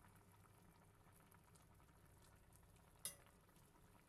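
Faint simmering of laksa broth in a metal pot, with a single clink of the metal ladle against the pot about three seconds in.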